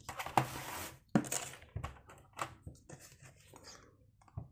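Small plastic parts being handled: a short rustle in the first second, then a string of sharp clicks and taps as a small plastic wheel on a wire axle is fitted to a toy RC plane's landing-gear strut.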